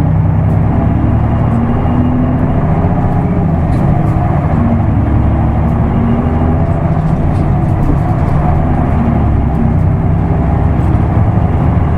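Isuzu Erga Mio manual-gearbox bus running on the road, its diesel engine rumbling loud and steady with the engine note rising and falling a few times as it drives.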